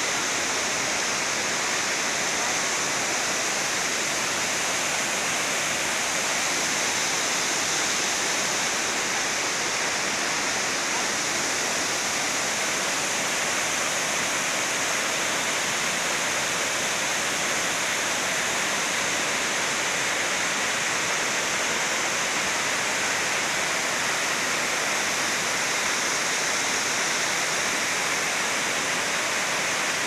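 Waterfall: white water plunging over rock ledges into a pool, a steady, unbroken rushing noise.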